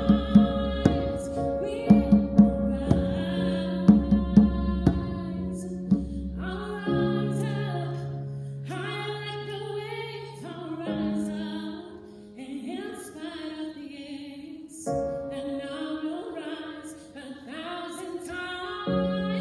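A woman singing with a djembe accompanying her: sharp drum strokes under the voice for about the first six seconds, after which the drumming stops and she carries on singing long held notes.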